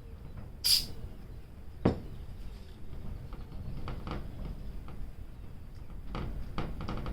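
A small metal bit working inside a mower carburetor, making light clicks and scrapes, with a short scrape burst near the start and a sharp knock about two seconds in. The bit is not engaging the slot of the part it is meant to turn.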